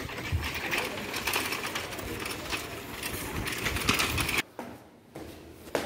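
Bicycle being ridden: a fast, steady mechanical rattling and ticking from the bike that cuts off suddenly about four and a half seconds in.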